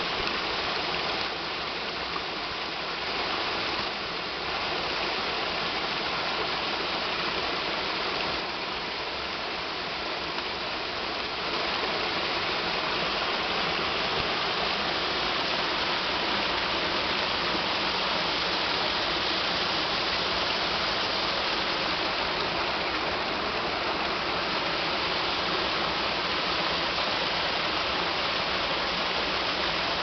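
Small waterfall pouring over a rock ledge into a creek pool, a steady rush of falling and splashing water that gets louder about twelve seconds in.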